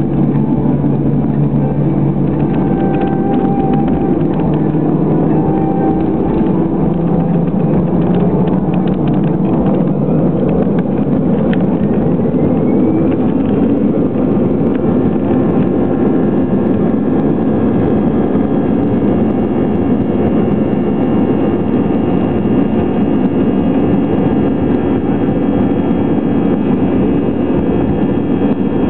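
Airbus A320 jet engines heard from inside the cabin: a steady, loud rumble. About halfway through, a whine of several high tones comes in and strengthens.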